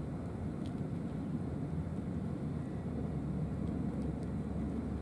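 Steady low rumble of outdoor background noise, with a few faint short clicks.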